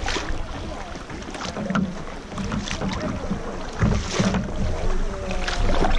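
Double-bladed kayak paddle dipping and splashing into the water with regular strokes, a splash every second or so. Wind rumbles on the microphone underneath.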